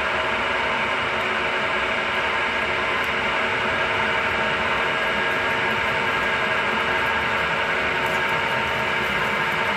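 Milling machine running under load as a 40 mm drill bit bores through metal: a steady, even machine noise with a constant whine from the spindle drive. The bit is unevenly sharpened and cuts more on one edge than the other, though it still bites well.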